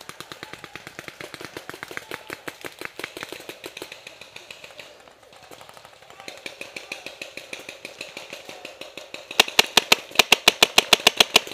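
Paintball markers firing: a continuous stream of sharp pops from guns around the field. From about nine seconds in a much louder, close marker fires quick strings of shots, several a second.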